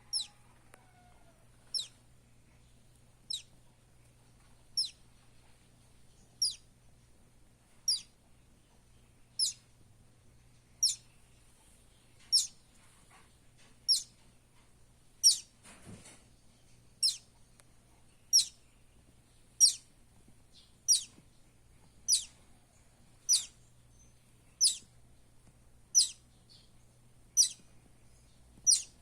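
Buff-banded rail chick peeping: a steady series of short, high-pitched calls that fall in pitch, about one every second and a half.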